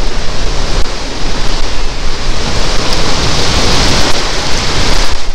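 Wind buffeting the microphone: a loud, steady rush of noise with a gusty low rumble.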